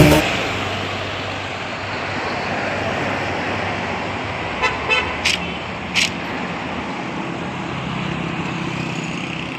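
Steady road traffic noise with engine hum, and a few short horn toots about five seconds in.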